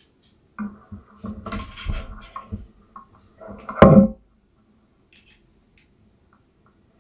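Handling noise as an SSD dock and its cables are set up on a desk: a couple of seconds of scraping and rustling, then a sharp knock a little under four seconds in, the loudest sound.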